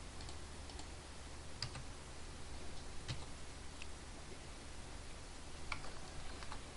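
A few scattered, sharp clicks of a computer mouse and keyboard, over a faint low hum.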